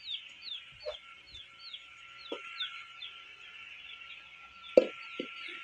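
Fowl calling: a steady run of short, high, falling peeps, two or three a second, with a few low clucks between them. About five seconds in comes a single sharp metal clank, the loudest sound, as a steel pot is handled.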